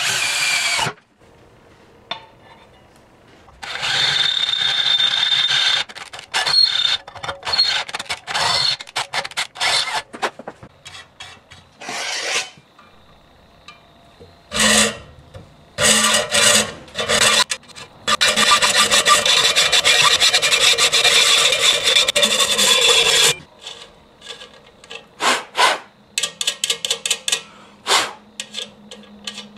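Hand metalworking at a bench vise: a cordless drill boring through a steel plate, then a hacksaw cutting threaded rod in a run of short strokes. Near the end come rapid light clicks.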